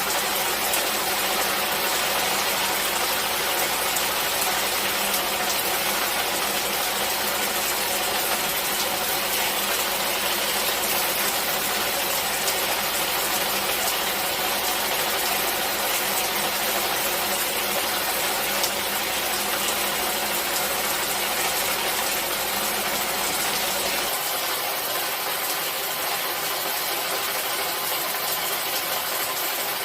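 Steady rain noise, an even hiss with no pauses; the low rumble beneath it drops away about 24 seconds in.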